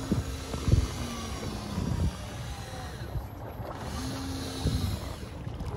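Noise on board a fishing boat: a low rumble of wind and water with knocks on the deck, the loudest one about a second in, and a short steady hum near the start and again about four seconds in.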